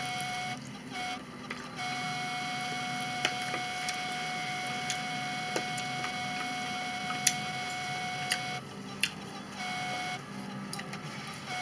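A steady electronic whine made of several held pitches, dropping out briefly a few times, with a few faint light clicks.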